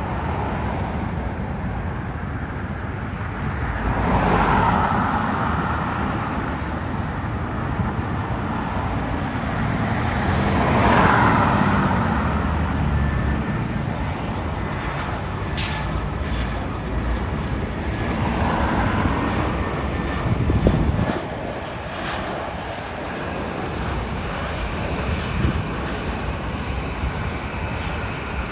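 Road traffic going by: a steady rumble with vehicles passing one after another, swelling about four, eleven and nineteen seconds in. There is a sharp click about halfway through.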